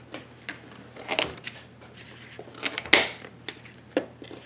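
Kitchen knife cutting through baby carrots onto a thin plastic cutting mat: about half a dozen crisp, uneven cuts, the loudest about three seconds in.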